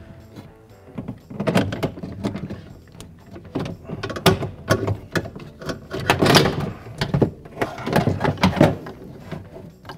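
Irregular knocks, clicks and scrapes of a power window regulator being worked loose and shifted about inside a steel pickup-truck door shell.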